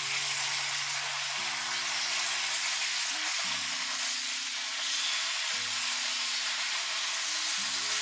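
Spinach and mushrooms sizzling steadily as they stir-fry in a hot wok, turned with tongs.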